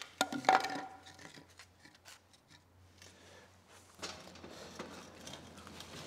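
Metal clinks and clatter with a brief ring about half a second in. Then, from about four seconds in, a few seconds of scraping and creaking as a long steel pry bar levers the heavy planer on its wooden skids to level it.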